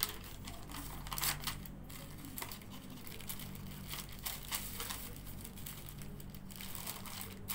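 Paper wrapper of a sterile surgical glove packet rustling and crinkling in irregular strokes as it is peeled open and unfolded by hand, over a faint steady low hum.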